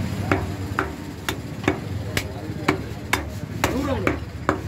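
Butcher's cleaver chopping mutton in steady, even strokes, about two a second.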